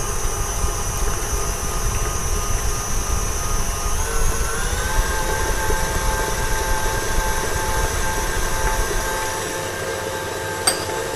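Electric mixer running steadily, beating cream cheese filling as the eggs go in. Its whine steps up slightly in pitch about four seconds in, and there is a short click near the end.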